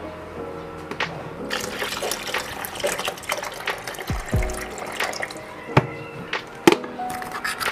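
Water poured from a plastic container into an electric kettle, a steady splashing fill strongest in the first half, with a few sharp knocks and clicks from the plastic being handled.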